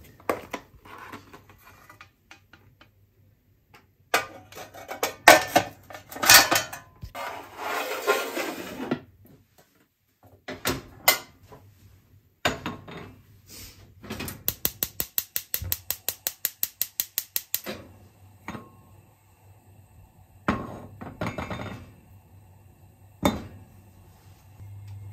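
Metal pans and utensils clattering and scraping on a kitchen counter and gas hob, with loud knocks. Later a gas hob's igniter clicks rapidly, about seven clicks a second for some three seconds, as a burner is lit.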